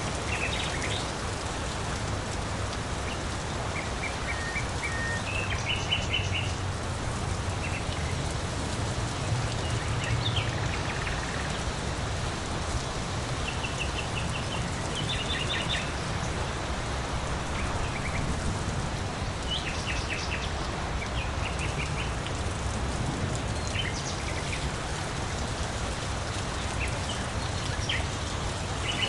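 Steady rain falling, with small birds giving short series of high chirps every few seconds over it.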